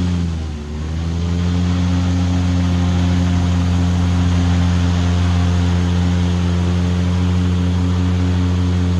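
Airboat engine and propeller running loud and steady. The throttle eases briefly about half a second in, then comes back up and holds.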